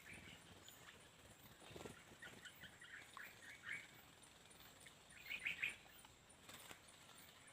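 Faint chirps of small birds: a scattered run of short chirps a couple of seconds in, then a quick, louder group of three chirps about five and a half seconds in.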